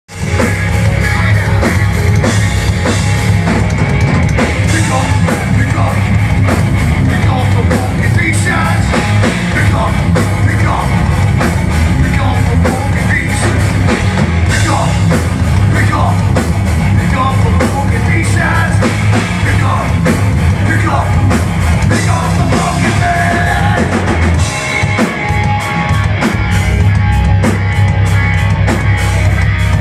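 Heavy metal band playing live in a club: distorted electric guitar, bass and a busy drum kit, loud and continuous, heard from within the crowd.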